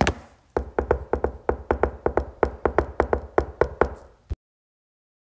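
Short percussive music sting: one sharp hit, then a quick, even beat of about five strikes a second over a deep bass, which cuts off abruptly after about four seconds.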